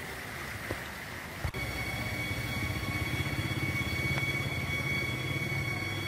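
A sharp click about a second and a half in, then a steady mechanical hum with a regular low pulse and a few thin high-pitched whines held over it.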